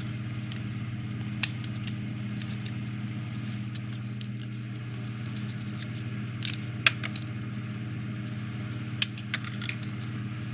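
Scattered light clicks and ticks of small foam-board 3D puzzle pieces being handled, punched out and slotted together, a few sharper snaps in the second half, over a steady low hum.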